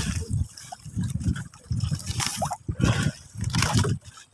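Water sloshing and gurgling in short, irregular splashes, with a few drips.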